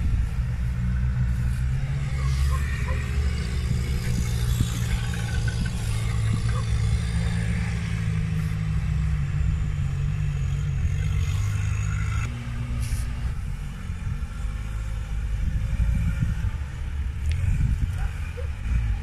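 Off-road 4x4 engine running at low revs, a steady low rumble that eases off and turns uneven about twelve seconds in.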